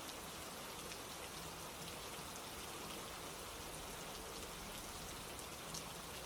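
Steady rain falling: an even hiss of drops with a sharper drop tick here and there.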